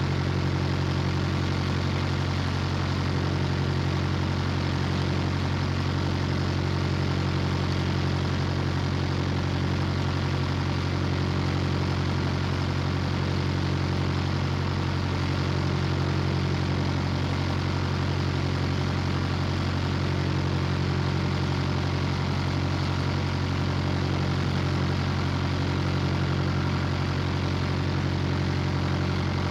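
Boat engine running steadily: an even, low drone with several steady tones, unchanging in pitch and level.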